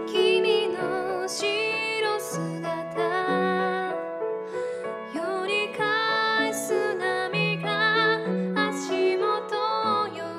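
Female voice singing a slow Japanese ballad over piano accompaniment.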